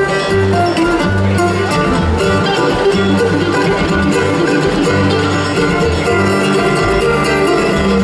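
Live country band music with fiddle and guitar, playing without spoken words.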